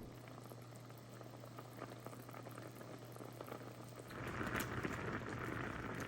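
A pot of rice cakes in thick sauce bubbling and popping as it boils, over a steady low hum. The bubbling grows louder about four seconds in.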